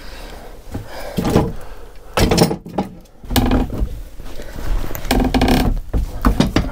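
Bar clamps being slid along and tightened on a wooden frame: several separate scrapes, clicks and knocks of the metal clamps against the wood.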